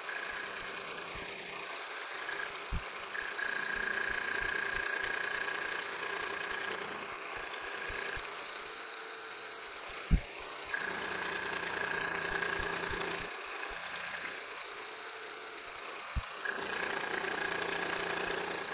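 Milling machine spindle running at about 1120 RPM with a dovetail cutter taking light conventional-milling passes along an aluminum edge. A steady high whine comes and goes several times over the machine's hum as the cutter runs through the cut, and there is one sharp knock about ten seconds in.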